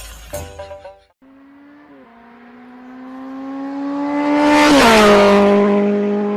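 A motor vehicle's engine approaching and passing close by. Its steady hum grows louder and its pitch drops as it goes past, about five seconds in. It opens after a short burst of music and a brief gap.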